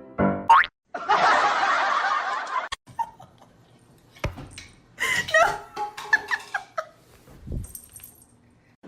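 People laughing in short bursts, with a loud stretch of hissing noise about a second in and a few sharp knocks.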